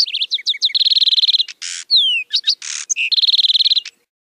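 Lark sparrow singing: a varied song of quick chirped notes, a rapid trill, two harsh buzzes and falling whistled slurs, then a second rapid trill before it stops.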